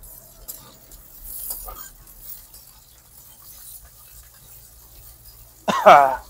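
A flat spatula stirring and scraping onions and chillies frying in oil in a metal kadai, with a faint sizzle. Near the end comes a brief, loud voice-like sound.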